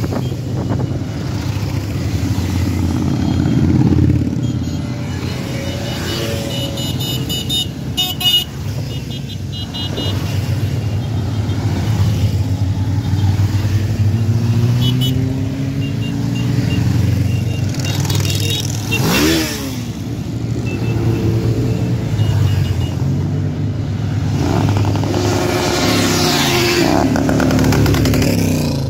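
A steady procession of motorcycles and scooters riding past, engines rumbling together with occasional revs. One machine passes close and revs hard about two thirds of the way in, and a few short horn beeps sound about a quarter of the way in.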